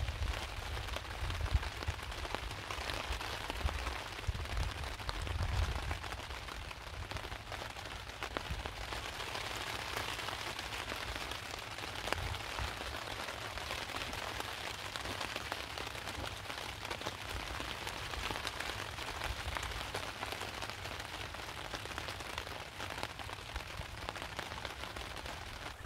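Heavy rain steadily pelting down on a tarp overhead, with low, irregular rumbles in the first few seconds.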